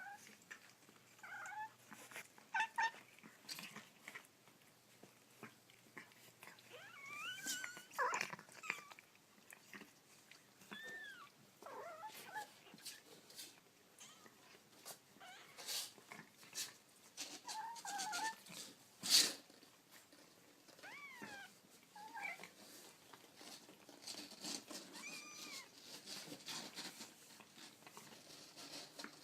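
Kittens mewing: faint, short, high-pitched mews that rise and fall, scattered through, among small clicks and rustles, with one sharp click about two-thirds of the way through.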